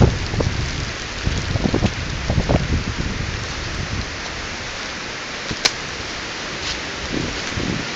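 Storm wind rushing steadily through woodland trees, with gusts buffeting the microphone in the first few seconds and one sharp click about halfway through.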